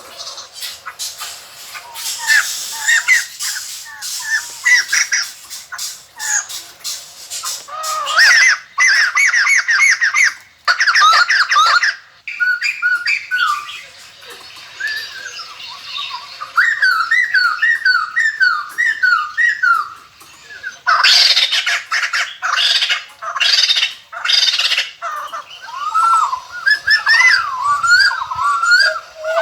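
A flock of white-crested laughingthrushes calling in loud bursts: harsh squawking chatter alternating with rapid runs of short rising-and-falling whistled notes, with brief lulls between bouts.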